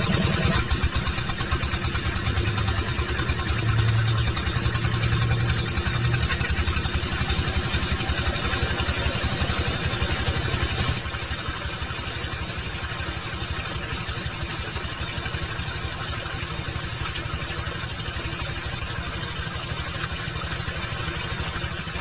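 Small engine running steadily with a fast, even firing pulse, a little quieter after about eleven seconds.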